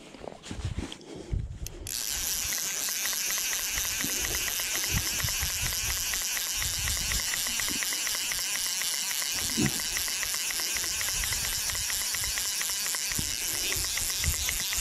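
Fly reel's click-and-pawl ratchet buzzing steadily as the spool spins, starting suddenly about two seconds in, with a few soft handling knocks.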